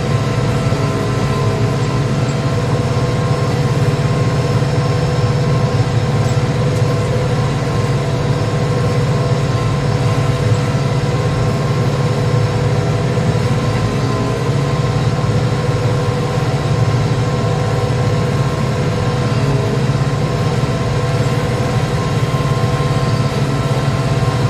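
Tractor diesel engine running steadily under load while pulling a two-furrow plough, an even low drone that does not change.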